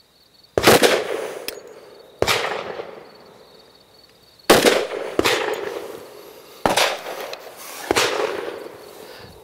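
Five shots from a Glock 40 Gen4 MOS pistol in 10mm Auto, fired slowly and aimed, one to two seconds apart, each sharp report followed by a long fading echo.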